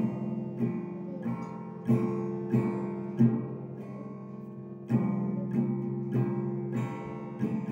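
Acoustic guitar strummed repeatedly on one chord, a stroke about every two-thirds of a second with the chord ringing between, and one longer ring of about a second and a half midway.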